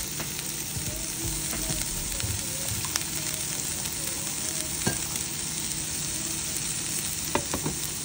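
Steady sizzling of broccoli and carrots frying in butter in a nonstick pan, with a second pan of rice cooking beside it. A few sharp clinks near the end as a glass lid is set on the rice pan.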